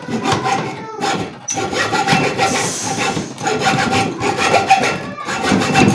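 Hacksaw cutting through a wooden pole with rapid back-and-forth strokes, a rasping sound over a steady ringing note, pausing briefly about a second in and again near the end.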